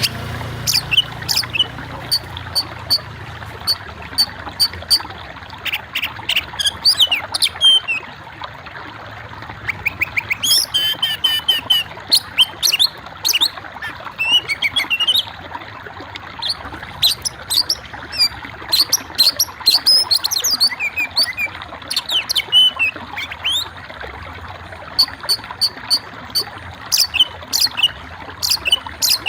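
Small birds chirping, with many short sharp notes and quick rising and falling sweeps coming in clusters, over a steady background hiss.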